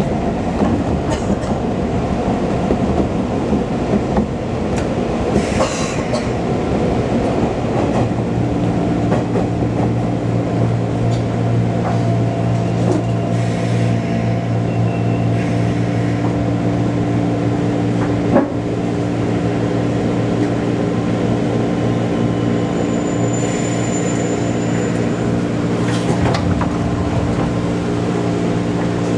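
JR Keiyo Line commuter train heard from inside the carriage: wheel and rail running noise, then from about eight seconds in a steadier hum with several held low tones as it draws into a station. A single sharp knock comes about halfway through.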